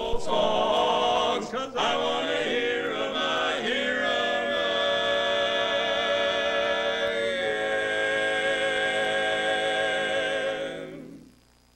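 Male barbershop quartet (tenor, lead, baritone and bass) singing a cappella in close four-part harmony. It closes on a long held chord that ends about a second before the end.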